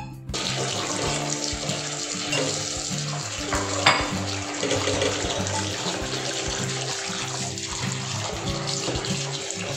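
Kitchen tap running into a stainless steel bowl of dried red dates (jujubes) as they are rinsed and stirred by hand, with one sharp click about four seconds in. Background music with steady low notes plays underneath.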